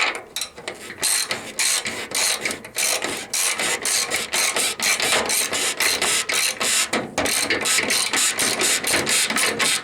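Socket ratchet with a long socket clicking rapidly and evenly as a bolt is turned, with a brief pause a little after seven seconds.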